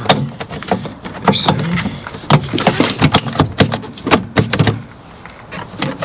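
Plastic pillar trim of a Ford Transit being pried and wrenched off by hand, its clips and panel giving irregular sharp clicks, cracks and knocks. It goes briefly quieter near the end.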